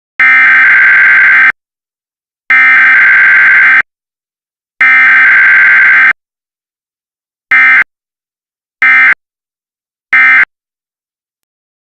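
Emergency Alert System SAME data tones for a required weekly test: three loud header bursts of about a second and a quarter each, then three short end-of-message bursts, with no attention tone.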